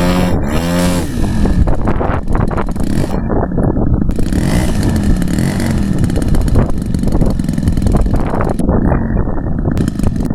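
Small engine of a model airplane in flight, its pitch rising and falling as it manoeuvres, with heavy low rumble from wind on the microphone.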